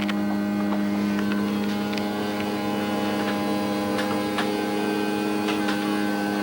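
Motorhome slide-out mechanism running as the room slide extends: a steady motor hum holding one pitch, with a few faint clicks and ticks from the moving slide.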